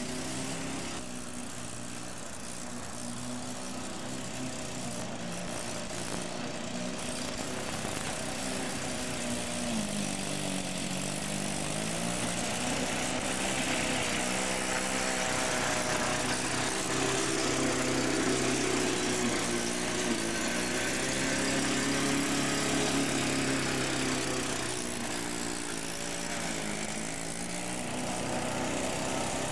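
Sachs KM3 110 cc Wankel rotary engine on a Wolf lawnmower running while cutting grass, its pitch dipping and rising again several times. It grows louder in the middle of the stretch.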